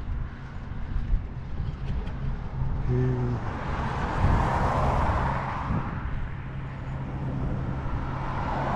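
A car passing on the road beside the bike path: its tyre and road noise swells to a peak about four to five seconds in, then fades, and rises again near the end as another vehicle approaches. Under it, wind buffets the microphone of a camera on a moving bicycle, a constant low rumble.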